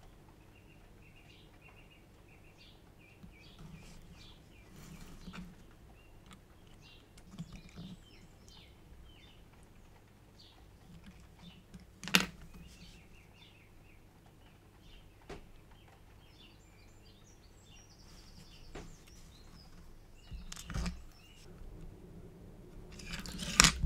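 Quiet room with faint bird chirps for the first ten seconds or so, then a few sharp clicks, the loudest about halfway through.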